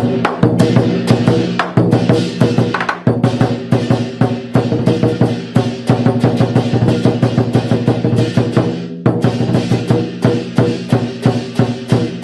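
Chinese dragon-dance percussion music: drums beaten in a fast, steady rhythm with ringing metallic tones under the strokes.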